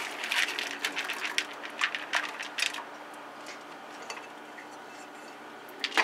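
Split chickpeas (chana dal) poured from a plastic colander into a stainless steel pot of hot water: a quick patter of clicks for the first few seconds as the grains hit the pot, then a faint steady hiss, with one more click near the end.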